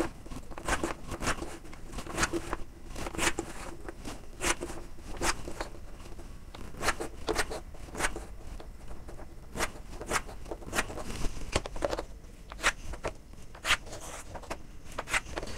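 Chalk drawn in short strokes along a long ruler on a chalkboard: a series of quick scratches and taps, irregular, about one or two a second.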